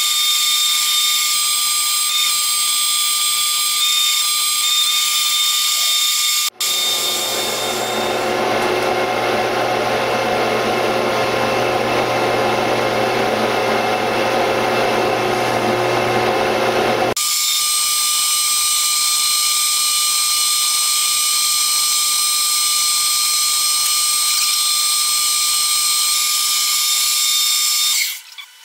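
Metal lathe turning a large steel bar, the tool cutting and throwing chips, with a steady high-pitched whine. About six seconds in the sound switches abruptly to a lower, fuller running sound, and about seventeen seconds in it switches back to the high whine. It dips briefly near the end.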